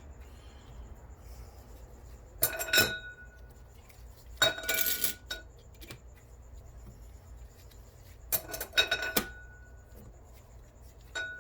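Steel clutch plates of a 4L60E forward clutch pack clinking and rattling against the drum as they are worked into place, in three short clusters of ringing metal about two and a half, four and a half and eight and a half seconds in, the middle one a longer rattle.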